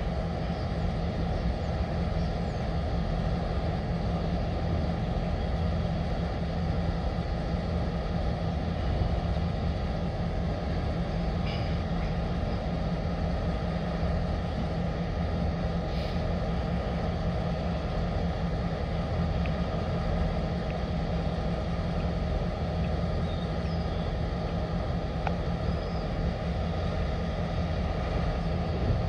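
Finger Lakes Railway diesel-electric locomotives idling, a steady low engine drone with a constant hum.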